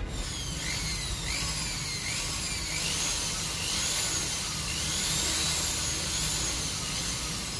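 Makita corded electric drill running with a flexible drive shaft on its chuck, its motor whine rising and falling in pitch several times as a homemade mechanical switch on the trigger varies its speed.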